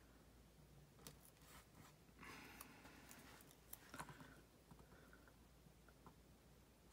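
Near silence with faint handling of sticker paper: a few light ticks and a brief rustle about two seconds in, as a sticker is peeled and placed on a planner page.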